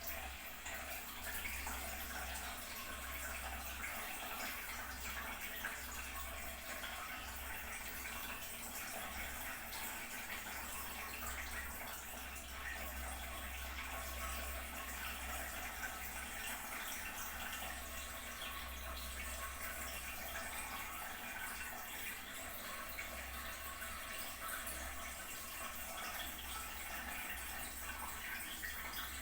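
Toilet tank refilling after a flush: water running steadily into the cistern.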